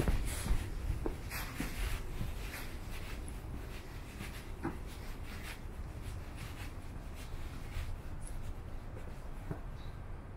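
Walking footsteps, a short scratchy step about once a second, over a steady low rumble.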